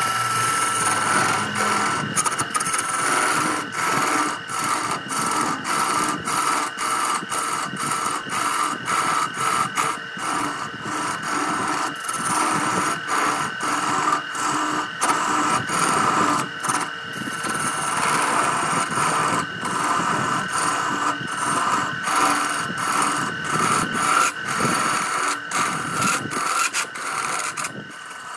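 Wood lathe running with a steady whine while a turning chisel cuts the spinning wood, a rough scraping that rises and falls as the tool works.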